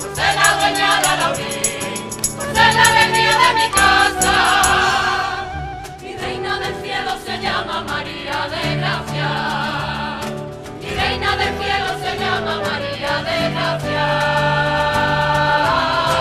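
A rociero-style choir singing a devotional song to the Virgin in chorus, with Spanish guitar accompaniment.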